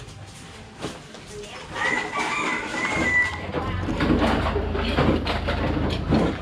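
A rooster crows once, a drawn-out call about two seconds in. Rustling and knocking follow as sacks of rubbish are hauled out through a narrow doorway, over a low rumble.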